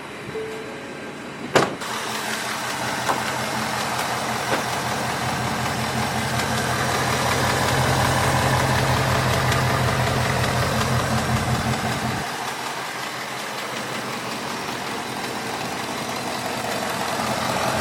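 Ford Mustang GT's 5.0 Coyote V8 idling, with a sharp click about a second and a half in and the engine note dropping a step near the end. The engine carries the ticking that the owner takes for the Coyote's typewriter tick.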